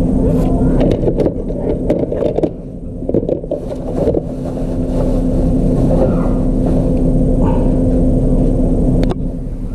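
Refrigerator running with a steady low hum and rumble, broken by scattered sharp clicks and knocks in the first few seconds and once more near the end: the strange noise of a fridge.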